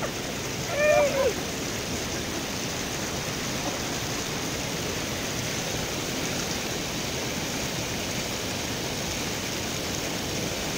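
River water rushing over rocks, a steady, even rush. A man's voice sounds briefly about a second in.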